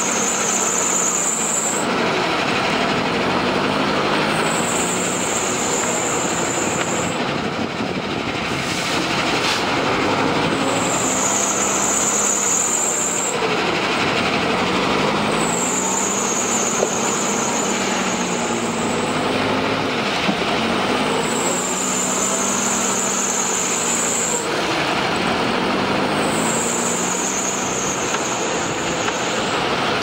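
JCB backhoe loader's diesel engine running and revving up and down about every five seconds as the machine works, over a steady mechanical clatter and hiss.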